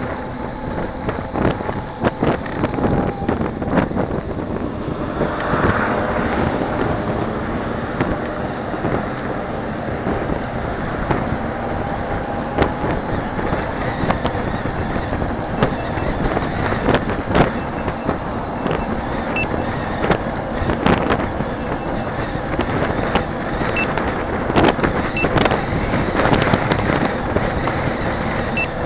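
Road and wind noise from riding a Gotway MSuper2 HS electric unicycle, with frequent small knocks from bumps in the pavement. A faint steady high whine runs underneath.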